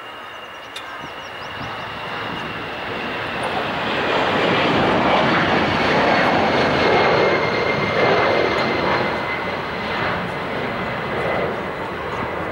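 An airplane passing overhead: engine noise swells over the first few seconds, peaks in the middle and eases toward the end, with a high whine that slowly falls in pitch.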